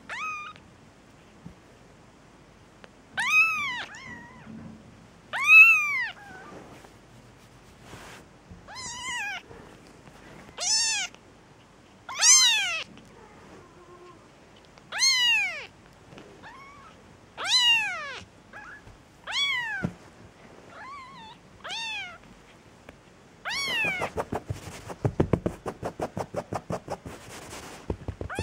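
Young Persian kittens mewing: a high cry that rises and falls in pitch, repeated about a dozen times at intervals of one to two seconds. Near the end comes a fast run of short pulsing sounds, about five a second.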